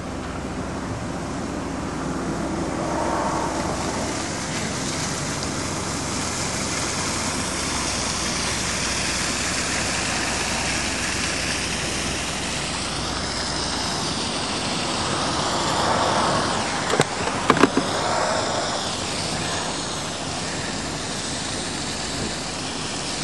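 Steady road traffic noise, with a vehicle passing close and swelling past about two-thirds of the way through. A few sharp clicks come as it passes.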